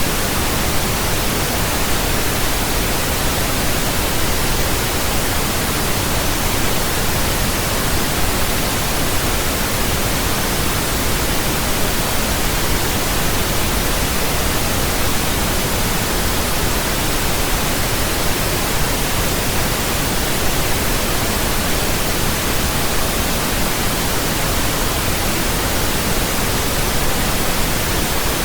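Steady pink noise: a constant, even hiss spread across all pitches, deeper than white noise.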